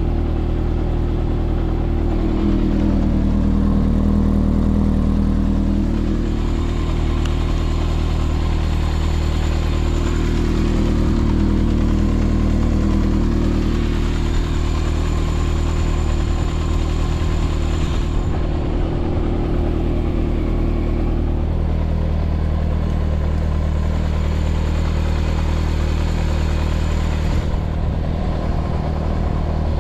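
Yamaha XJR400's air-cooled inline-four idling through an SP Tadao Super Combat full exhaust, running steadily; the note swells slightly a couple of times and settles about two-thirds of the way through.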